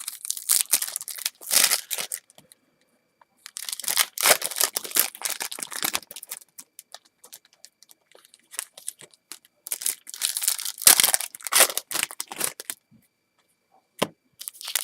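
Baseball card pack wrapper being torn open and crinkled in the hands, in three bouts of crackling with pauses between, and a single sharp click near the end.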